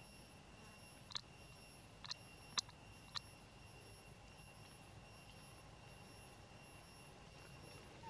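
Faint outdoor background with a steady high-pitched whine. Four short, sharp chirps or clicks come in the first half, the third the loudest.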